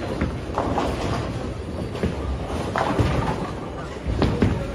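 Bowling balls rolling down wooden lanes with a steady low rumble, broken by several sharp crashes of balls striking pins on the neighbouring lanes.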